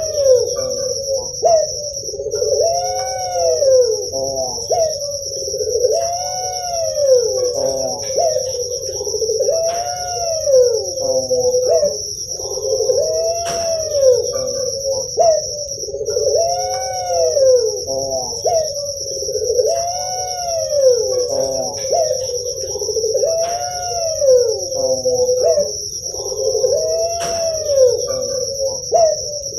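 Puter pelung dove (Barbary dove, Streptopelia risoria) cooing over and over, each call a rising-and-falling coo about two seconds apart. A steady high-pitched shrill, like crickets, runs behind.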